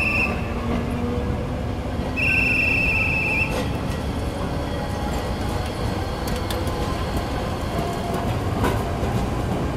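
Hakodate city streetcars running on street track: a steady rumble of wheels and running gear as one tram pulls away and the two-car low-floor tram 9602 rolls past. A high steady squealing tone ends just after the start, and another sounds for about a second at about two seconds in.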